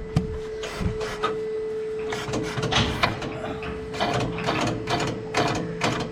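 A steady mechanical hum or whine, like a small motor running, with many short clicks and rattles of metal and rope at the cattle crush as old rope is pulled out.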